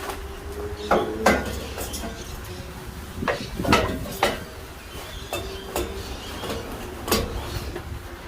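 A series of sharp knocks and clatters, about seven spread irregularly, over a steady low hum.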